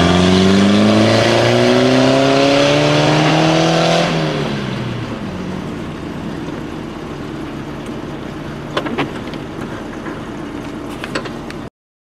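Off-road vehicle engine revving hard, its pitch climbing steadily for about four seconds, then dropping away into a rushing noise with a few sharp knocks near the end. The sound cuts off suddenly just before the end.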